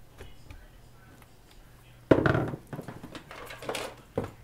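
Handling clatter as a screwdriver is set down on the desk and a circuit board is settled into a ZX Spectrum +2's opened plastic case. There is a loud knock about two seconds in, then lighter irregular clattering and one more sharp knock near the end.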